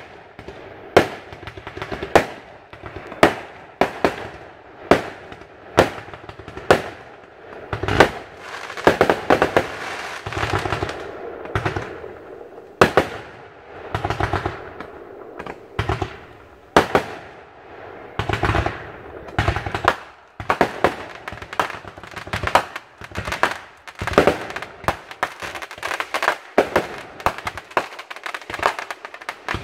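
Aerial fireworks going off: a string of sharp bangs, about one a second at first, then stretches of dense crackling as bursts pile up, with more single bangs between them.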